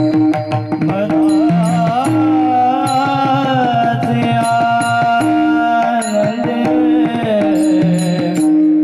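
A male voice sings a Warkari devotional melody (Warkari chal), with small brass hand cymbals (taal) struck in rhythm and a hand drum keeping time beneath the voice.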